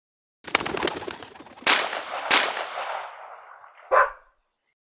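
Pigeons' wings clattering in a quick flurry as they take off, then two shotgun shots about two thirds of a second apart, each with a long fading echo. A single short sharp sound follows near the end.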